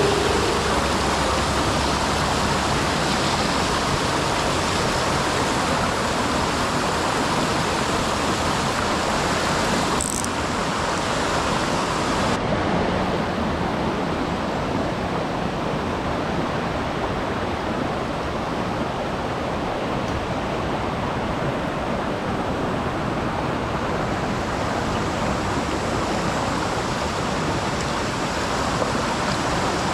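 Mountain stream rushing, a steady hiss of flowing water, with one brief click about ten seconds in.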